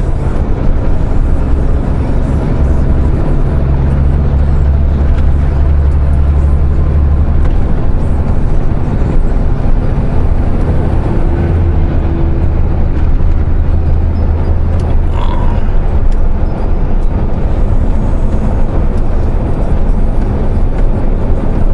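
Cab interior of a MAN truck on the move: the diesel engine drones steadily under continuous road and tyre noise.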